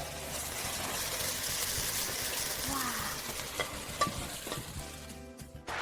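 Diced chicken with Sichuan peppercorns and pepper leaves sizzling in hot oil in the pan, with a few light clicks of the spatula stirring. The heat has just been turned off, and the sizzle dies away near the end.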